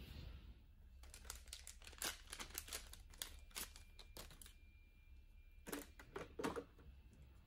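Faint crinkling and rustling as a paper ESE coffee pod is handled, with a few louder short knocks about six seconds in.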